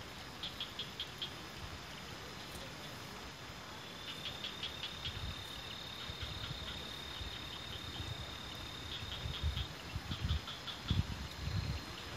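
Night insects singing in the grass: a steady high trill broken by rapid chirping pulses, over a faint even hiss. A few low thumps sound near the end.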